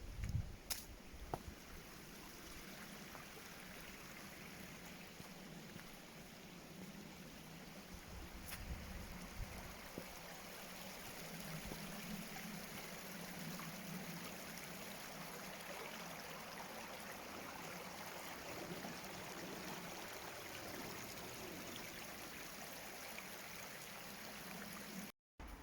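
Water of a small woodland stream running steadily, with a few sharp knocks in the first couple of seconds. A brief dropout near the end cuts the sound off.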